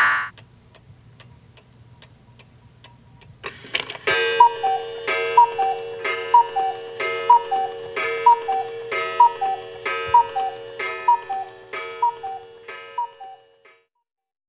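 Faint clock ticking, then an alarm sounding a repeating two-note chime, high then lower, about twice a second, gradually fading out.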